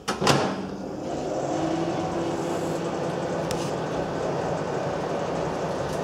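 Microwave oven door shut with one loud knock, then the 700 W microwave oven starts about a second later and runs with a steady hum and fan noise.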